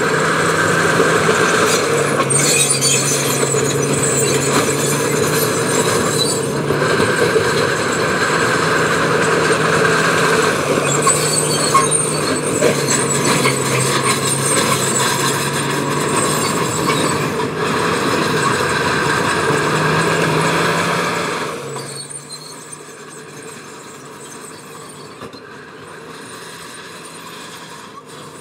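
A heavy diesel earthmoving machine runs hard under load, with a harsh grinding noise over the engine note. About three-quarters of the way through, the noise drops off sharply and the engine runs on more quietly.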